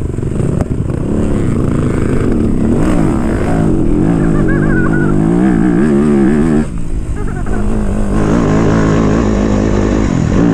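Yamaha enduro dirt bike engine pulling up a hill climb, the revs rising and falling with the throttle. The revs drop away briefly about two-thirds in, then the engine pulls hard again.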